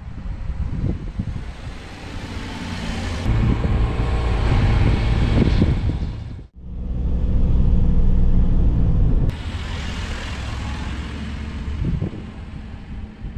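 Daihatsu Hijet kei truck's small three-cylinder engine running as the truck drives along, with a steady low rumble and tyre noise. The sound changes abruptly at cuts between shots and is loudest in the middle stretch, close alongside the truck.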